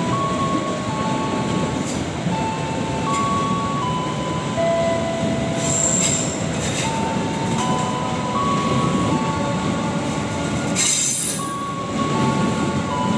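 Long-distance passenger train's stainless-steel coaches rolling past at close range in a steady rumble, with wheel squeal sounding as a run of thin tones at shifting pitches. Two brief high-pitched bursts come about six and eleven seconds in.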